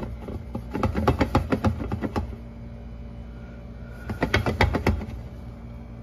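Stainless frying pan with its glass lid being shaken on the stovetop to slide a sticking omelette loose: quick rattling clicks of pan and lid, in two bursts a couple of seconds apart.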